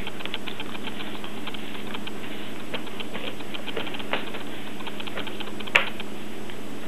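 English bulldog puppy chewing and gnawing, a run of small irregular clicks and crunches with one sharper click about six seconds in, over a steady background hum.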